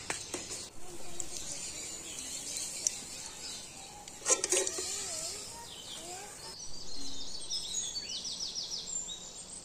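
Hot oil sizzling as a malpua fries in an aluminium kadai, with a metal clatter of the slotted spoon about four seconds in. After about six and a half seconds the sound changes to birds chirping in quick runs of short falling notes.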